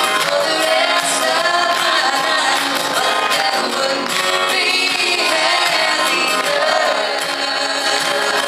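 A woman singing a country song live, backed by a band.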